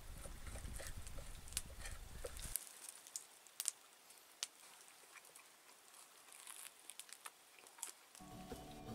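Faint scattered clicks and light rustles from handling a knife and food on a wooden plate, with a low rumble for the first two or three seconds.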